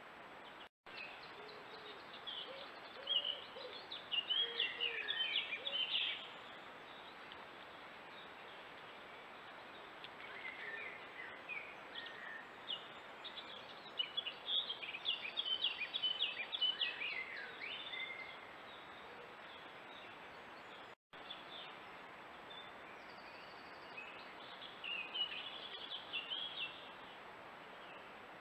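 Small songbirds singing in three spells of quick, high chirping phrases over the steady hiss of a trail camera's microphone.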